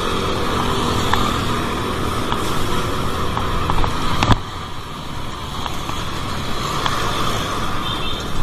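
Steady road noise of motor traffic. A sharp click comes about four seconds in, and the noise drops a little after it.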